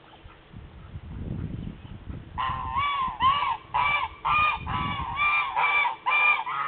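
Several domestic geese honking, a string of about eleven arching honks at two or three a second that begins a little over two seconds in. Before the honking there is only a faint low rumble.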